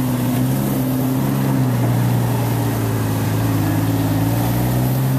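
Jeep Wrangler's engine running steadily at low revs as it crawls along a sandy trail, heard from inside the vehicle as an even low drone.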